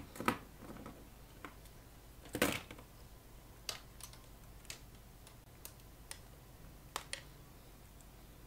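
Faint, scattered small clicks and taps of hands working twisted heater wire against the metal chassis and tube sockets of a valve guitar amplifier, with a brief louder rustle about two and a half seconds in.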